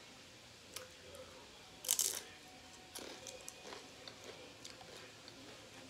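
Tortilla chip bitten with one loud, short crunch about two seconds in, followed by lighter crackling crunches of chewing.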